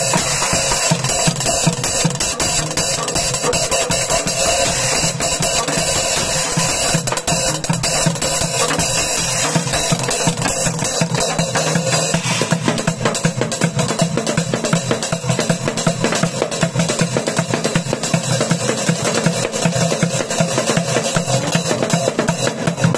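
Fast, dense drumming with wooden sticks on recycled junk percussion: metal cooking pots, plastic buckets, upturned plastic water-cooler jugs and worn, cracked cymbals. The mix of drum sounds changes about halfway through.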